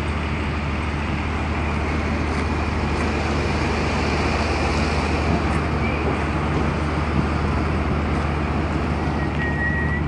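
Cargo ship's machinery running at the quay: a steady low hum made of several deep tones, with an even hiss over it. A short high tone sounds just before the end.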